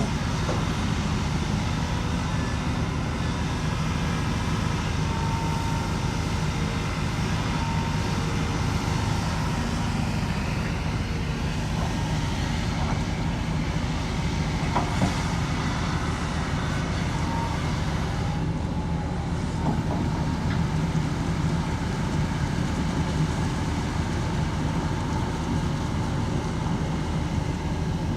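Heavy diesel earthmoving machinery running steadily with a deep, even rumble, with one short sharp knock about halfway through.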